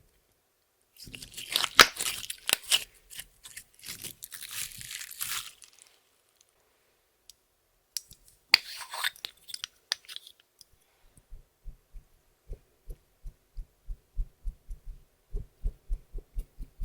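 Clear slime being worked by hand, with makeup and glitter mixed in: two stretches of crackly, crunchy squishing, then a quick run of soft low pats, about three or four a second.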